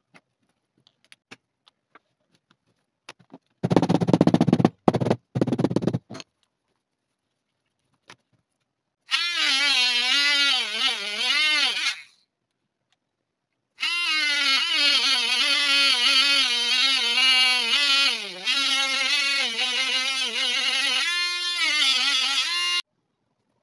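Handheld rotary tool with a burnishing bit running against a leather wallet's edge to burnish it, its motor whine wavering and dipping in pitch as it is pressed on, in two spells with a short stop between. Earlier comes a couple of seconds of loud rushing noise.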